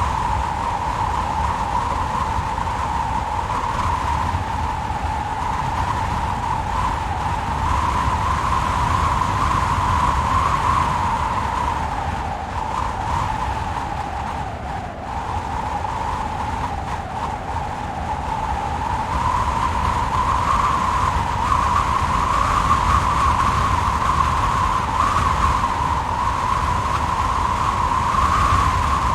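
Heavy wind gusts: a whistling tone that wavers up and down in pitch over a steady rush and low rumble, easing a little about halfway through and building again.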